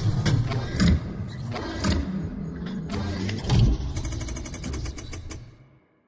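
Sound effects of an animated logo intro: a deep mechanical rumble with whooshes and several heavy metallic hits, then a rapid run of clicks before it all fades out.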